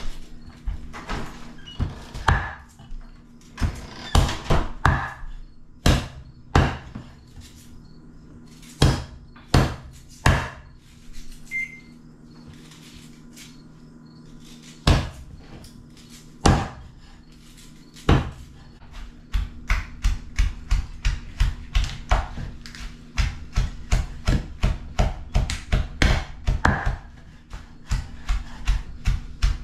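Cleaver chopping raw rabbit meat on a wooden chopping board, mixed with a pestle pounding in a mortar. Scattered heavy chops come first, then a fast, even run of knocks, about three a second, through the second half.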